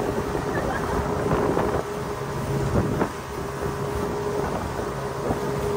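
Speedboat running at speed, its motor a steady hum under rushing water and spray off the hull, with wind buffeting the microphone. A couple of sharper splashes come about two and three seconds in.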